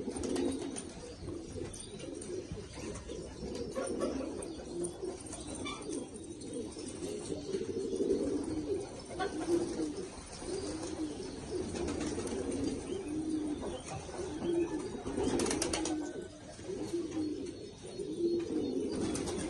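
Afghan domestic pigeons cooing over and over in low, warbling coos, with a brief flutter of wings about three-quarters of the way in.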